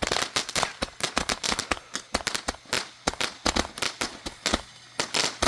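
Spinning multi-tube Roman candle rack firing a rapid, irregular string of pops, several a second, with a short lull about four seconds in.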